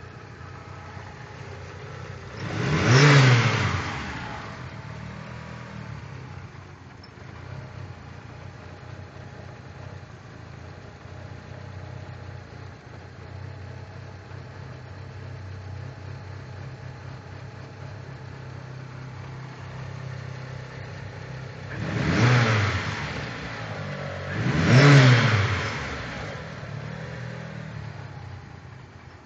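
1996 Mitsubishi Eclipse Spyder's swapped-in 6-bolt 4G63 four-cylinder engine idling, revved up and let fall back three times: once early, then twice close together near the end. The idle is rough and sets no trouble codes.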